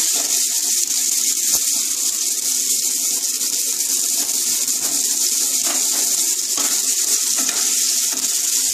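Chopped onion, tomato and curry leaves sizzling in hot oil in a nonstick kadai while being stirred with a wooden spatula: a steady frying hiss, with a few light knocks of the spatula against the pan.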